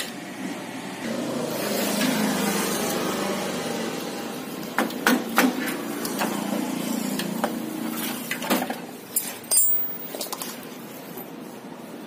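A few sharp metal clinks and knocks from tools and parts as a scooter's front suspension hub is taken apart. A couple come about halfway through and a cluster follows near the end, one with a brief high ring. Under them a broad background rumble swells and then fades.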